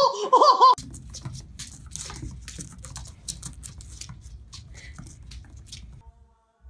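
A kitten's paws and claws tap and skitter on a wooden tabletop in quick, irregular clicks over a low rumble. It opens with a loud, high-pitched warbling voice that cuts off under a second in.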